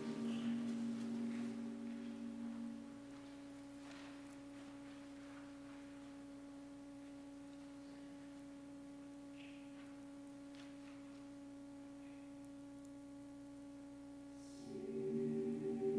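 A note fades away over the first three seconds, leaving one steady, pure held tone for about twelve seconds, with a few faint rustles; near the end a choir comes in singing and the sound grows louder.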